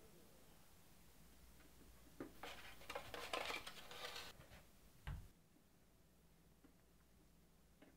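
Kitchen handling sounds at a mixing bowl: a couple of seconds of faint clinking and scraping of a utensil and ingredients, starting about two seconds in, then a single dull thump about five seconds in.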